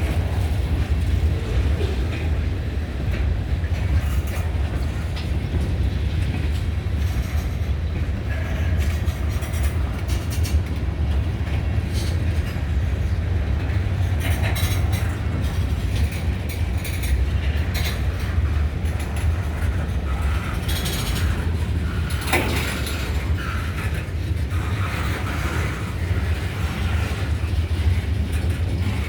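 Freight train cars rolling past: a steady low rumble, with scattered clicks and clanks from the wheels and a few brief high squeaks.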